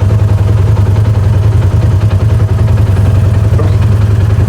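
Polaris RZR 570 side-by-side's single-cylinder engine running steadily under way, a constant loud low drone.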